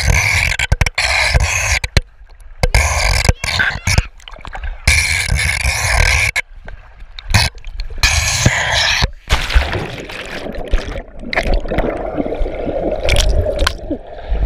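Rushing, splashing slide water heard by a waterproof camera riding down a tube water slide in the flow. It comes in choppy bursts with brief drop-outs as the camera dips in and out of the water, and sounds duller near the end when it goes under.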